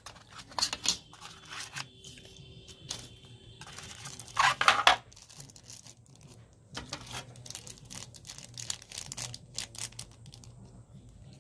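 Thin plastic accessory bags crinkling and rustling in the hands, with a louder tearing burst about halfway through as a bag is torn open.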